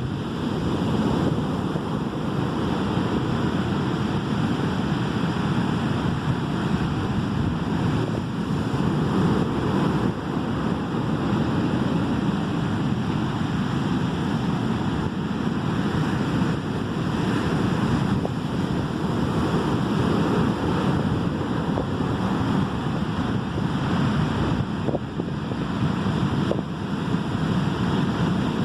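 Ocean surf breaking and washing onto the shore in a steady, continuous wash of waves.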